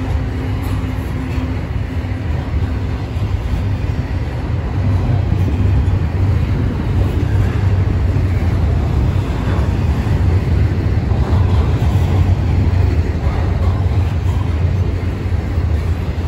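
Double-stack intermodal freight cars rolling past, a steady low rumble of steel wheels on the rails that grows a little louder after about five seconds.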